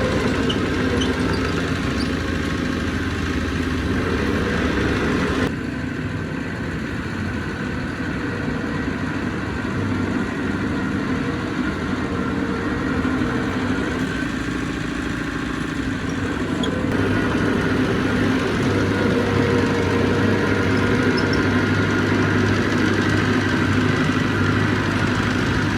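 Heavy earthmoving machinery's diesel engine running steadily. The sound changes abruptly about five and a half seconds in and again about seventeen seconds in.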